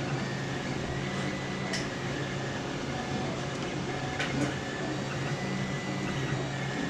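Steady low fan hum, with two faint clicks about two and four seconds in.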